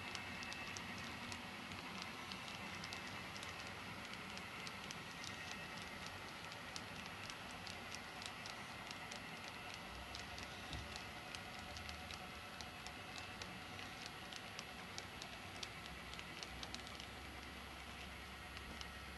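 HO scale model freight cars rolling along the track: many quick, irregular clicks of small metal wheels over rail joints, with a faint steady high whine underneath.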